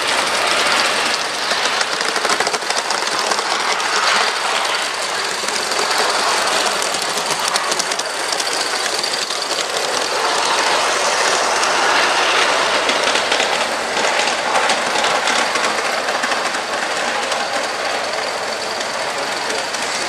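Large-scale garden-railway model of a steam locomotive pulling its train along the track. A steady running noise with the clicking of wheels over rail joints, going on without a break.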